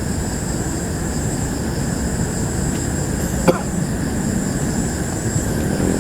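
Steady low outdoor background rumble with a constant high thin whine over it, and a single sharp click about three and a half seconds in.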